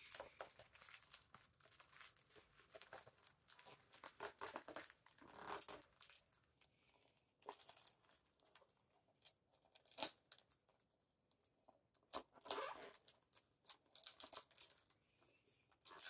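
Plastic shrink-wrap being picked at and torn off a 4K Blu-ray case: faint crinkling and tearing in fits and starts, coming away in bits, with short quiet pauses and a few sharper crackles.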